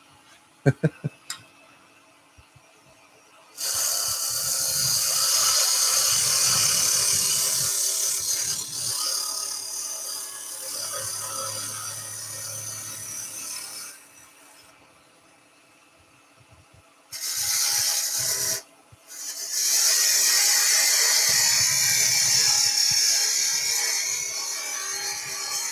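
Woodturning tool cutting into a small piece of wood spinning on a lathe, a high, hissing cut that comes in three spells: a long one starting about three and a half seconds in, a short one past the middle, and another running to the end. A few light clicks come just before, with the lathe running quietly between cuts.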